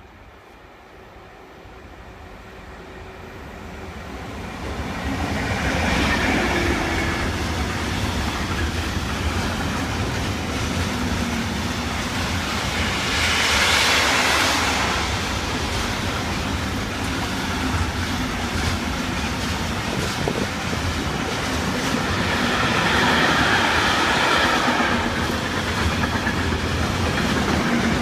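A train approaching and passing close by, its wheels rattling over the rails; it grows louder over the first five seconds and stays loud, swelling twice.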